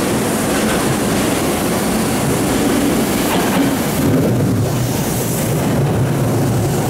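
Tokyo Metro 7000 series electric train pulling into the platform, its wheels running over the rails and points. The low rumble grows stronger about four seconds in as the front car comes alongside.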